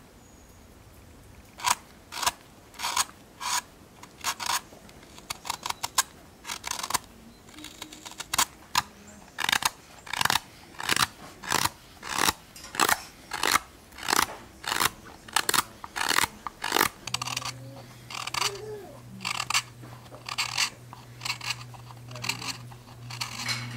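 A steel hook knife slicing shavings from the base of a freshly turned wooden bowl: a long series of short, crisp cuts, roughly one to two a second. A low steady hum joins about two-thirds of the way in.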